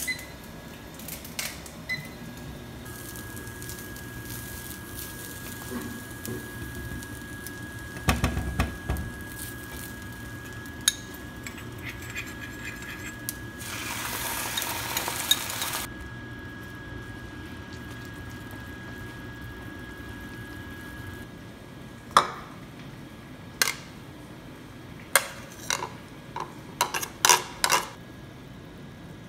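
Kitchen cooking sounds. A few short microwave keypad beeps at the start are followed by a steady hum. About halfway through there is a short sizzle as seasoning sauce is poured onto onions frying in a nonstick pan. Near the end come several sharp clinks of cookware against a ceramic bowl.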